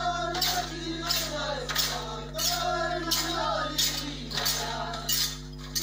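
Voices singing together over a rhythmic jingling, rattling percussion that strikes about twice a second: folk music for the Gond gedi stilt dance.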